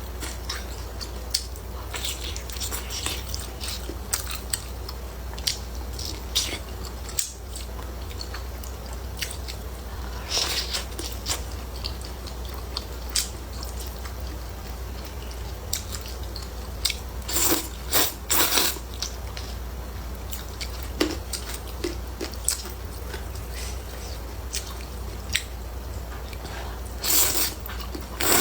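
Close-miked chewing and biting of hot and sour glass noodles, with small wet mouth clicks and a few louder noisy bursts: about ten seconds in, twice around seventeen to nineteen seconds, and near the end. A steady low hum sits under it.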